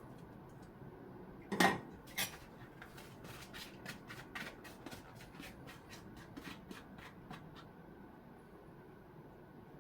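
Kitchen utensils knocking against dishes: two sharp clatters, the first the loudest, then a run of light, quick clinks that stop about seven and a half seconds in.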